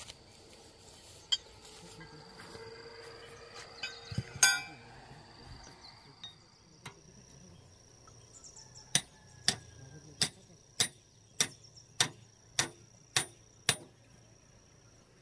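A hammer striking in the second half: about nine evenly paced blows, a little under two a second, each a sharp clink. One louder knock comes about four and a half seconds in. A steady high insect drone runs underneath.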